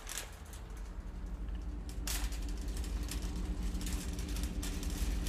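A low, steady hum slowly growing louder, with spells of fast mechanical clicking and rattling over it at the start, about two seconds in, and again near the end.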